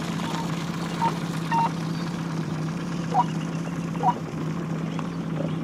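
Motorboat engine running steadily under way, a constant low hum. A few short, high-pitched beeps sound over it, about one a second in the first half.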